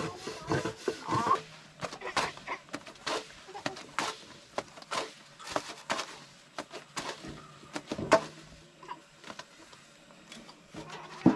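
A thin wooden rolling pin knocking and clacking irregularly against a round wooden board as thin tiri flatbread dough is rolled out, in sharp scattered clicks about one or two a second.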